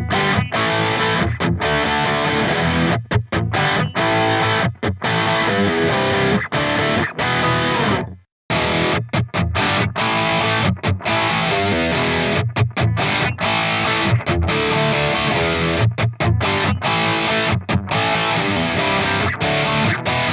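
Electric guitar with crunch distortion, a Paul Reed Smith SC245 played through a Kemper profiling amplifier profile of an ENGL Savage 120, playing riffs broken by many short stops. It cuts out completely for a moment about eight seconds in.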